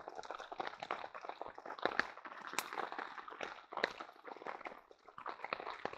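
Heavy rain pattering on a tarp shelter: a dense, uneven run of small ticks, with a few louder sharp pops scattered through.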